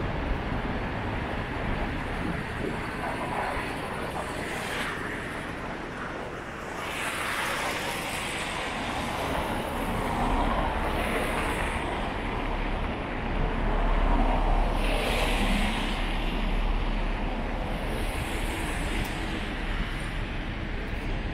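City street traffic: vehicles pass one after another, each swelling and fading, over a steady low rumble that grows heavier in the second half.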